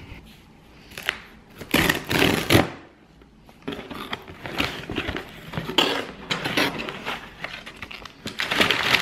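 Cardboard shipping box being opened by hand: lid flaps lifted and a paper insert pulled out above packing paper, with irregular rustling and scraping of cardboard and paper. There is a louder burst about two seconds in.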